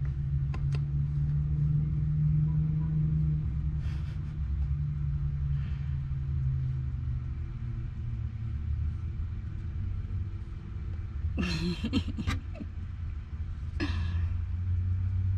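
Steady low mechanical hum, with brief scratchy noises twice near the end.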